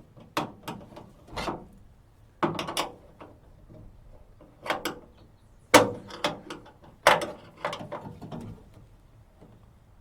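Irregular metal clicks and clunks in small clusters from hand work on a replacement door latch in a 1963 Chevrolet C10's door, with the loudest clunk about six seconds in.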